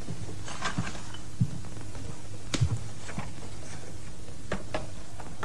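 Footsteps on a tiled floor and a few soft knocks as a laptop is carried over and set down on a low table, over a steady low hum.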